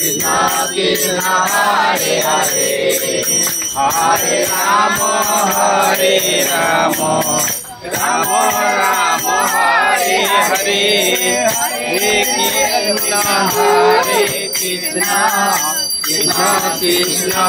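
A group of devotees singing a Hindu devotional chant together in call-and-response style, to rhythmic hand clapping and a jingling bell, during an aarti.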